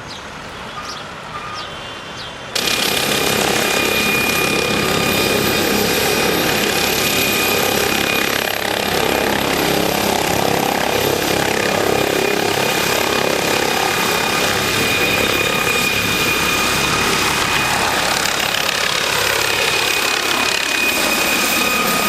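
Helicopter's turbine engines and rotor running, a loud steady rush with a high turbine whine, setting in abruptly about two and a half seconds in.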